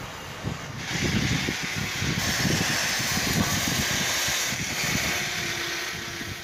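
Stick (arc) welding on steel: the arc hisses and crackles steadily, coming in about a second in and tapering off near the end, over an irregular low rumble.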